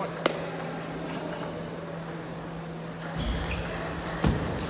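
Table tennis ball clicks: a sharp click shortly after the start and another just over four seconds in, with low thuds from about three seconds in as the rally gets going, over a steady low hum in the hall.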